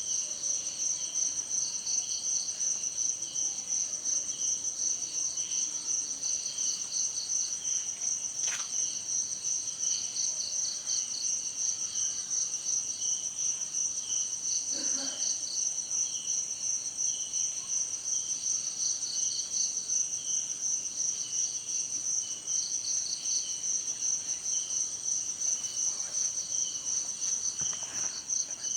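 Insect chorus of crickets-like callers: one steady high-pitched trill with several layers of rapidly pulsing chirps beneath it, with a few faint short sounds here and there.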